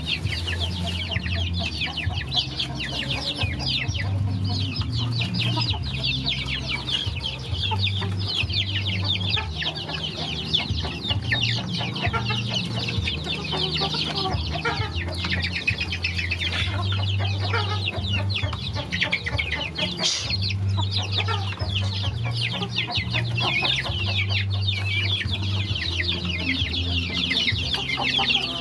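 A flock of young chickens peeping and cheeping continuously, many short high calls overlapping, while they feed. A low hum runs underneath.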